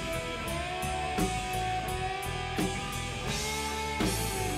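Background rock music: sustained electric guitar notes over a steady beat.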